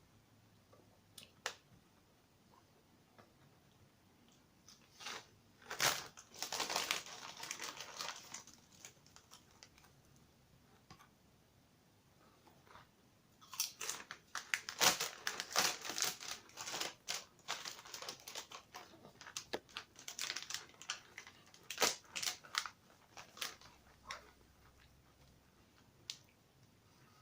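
Crisp packet crinkling and hand-cooked crisps being crunched and chewed, in two spells of crackly clicks with a quiet gap between them.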